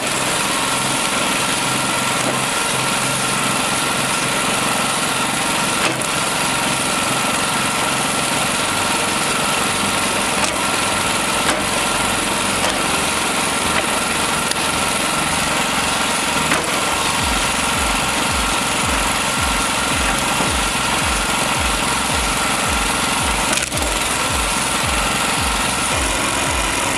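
Engine-driven homemade mechanical log splitter running steadily. From a little over halfway in, a low pulse repeats about two to three times a second, and there is a single sharp click near the end.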